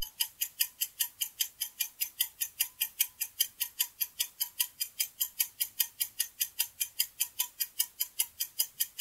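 Ticking-clock sound effect for a quiz countdown timer: rapid, even ticks, about five a second.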